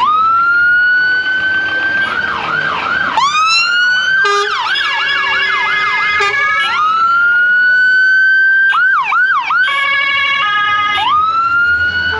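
Electronic emergency-vehicle sirens cycling through their modes: long rising wails, fast yelps and a stepped two-tone, changing every second or two, with two patterns overlapping at times.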